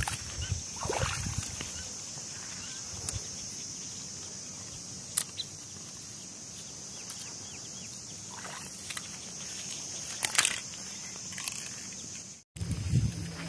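Insects buzzing with a steady high drone, with a few sharp clicks and rustles as a plastic container and a stone are handled and set down on dry ground.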